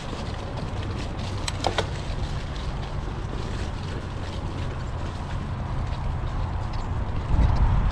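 Wind buffeting an action camera's microphone while a mountain bike is ridden along a dirt trail, a steady rumble that gets louder near the end. A brief squeak comes about a second and a half in.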